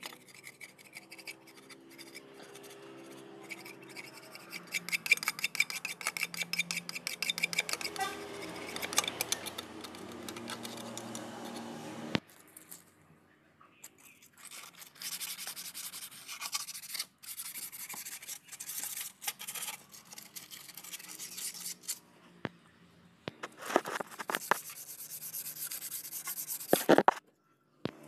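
Quick repeated rubbing and scraping strokes, several a second, on the oily underside of a Renault Kwid engine block, cleaning the oil-sump mating face with the sump removed. The strokes pause after about twelve seconds, resume more unevenly, and cut off suddenly near the end.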